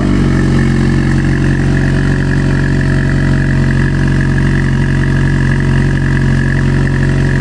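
Alpine A110 S's turbocharged 1.8-litre four-cylinder engine idling steadily, shortly after start-up.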